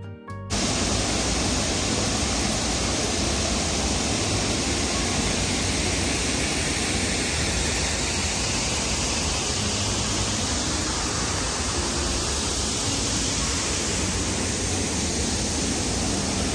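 Steady rushing noise, even across all pitches, that cuts in abruptly about half a second in and holds level throughout.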